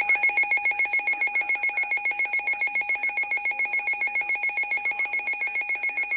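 Electronic alert trill: a rapid warble of about seven pulses a second, with high pitches flipping back and forth, that cuts off at the very end.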